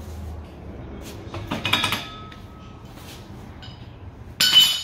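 Metal-on-metal clinks and clanks from working at the base of a steel engine hoist. A quick cluster of clinks comes about a second and a half in, and a louder ringing clank comes near the end.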